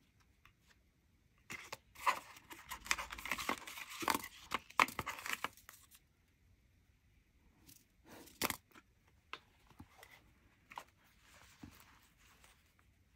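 Paper cards and a small paper desiccant sachet handled in a cardboard box: dense rustling and crinkling of paper for a few seconds, then a few sharp taps and lighter rustling later on.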